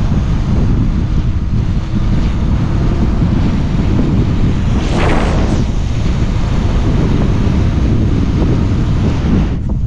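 Strong wind buffeting the microphone, a loud steady rumble, with a brief hissing surge about five seconds in.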